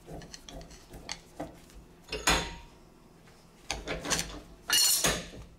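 Old bench vise being worked by hand: light clicks as the handle turns the screw, then three louder metal clanks and scrapes, the handle bar sliding through the screw to its stop and steel against the jaws, the last ringing briefly.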